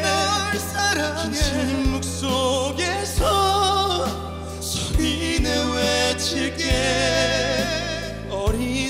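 Pop ballad sung as a duet in harmony, with long wavering held notes over a band backing of bass and occasional drum hits.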